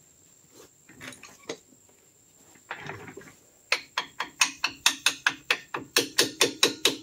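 A few light metallic clanks, then from about three and a half seconds in a rapid run of hammer blows on metal at a truck's front brake hub, about four strikes a second.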